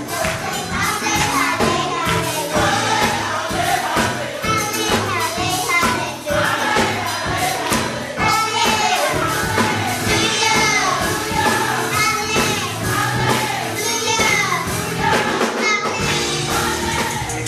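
Gospel music: a choir of voices singing over a steady beat.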